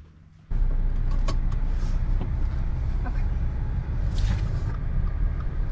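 Steady road and engine rumble heard inside a moving car's cabin with the windows up, starting abruptly about half a second in, with a few faint clicks and a brief hiss near the end.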